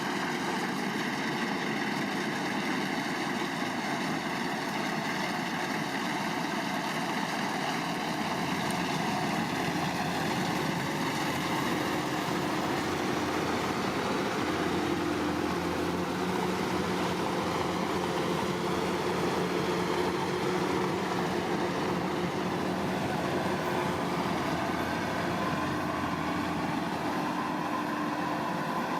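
Rice combine harvester running steadily, its engine and machinery holding a constant level with slight shifts in pitch.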